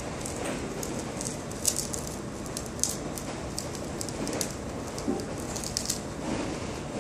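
A trimming tool scraping clay at the base of a closed spherical form turning on a potter's wheel, with irregular short scratchy clicks over the steady running noise of the wheel.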